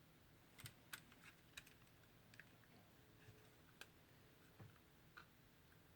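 Faint, irregular small clicks and taps, about a dozen over several seconds, of small hard plastic objects being handled.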